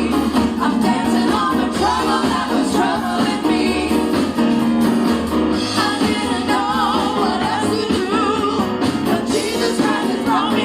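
Live gospel praise song: singing over a full band accompaniment with a steady bass line.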